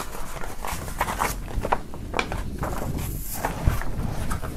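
Paper rustling and crackling as a folded poster is handled and unfolded, with one louder knock about three and a half seconds in.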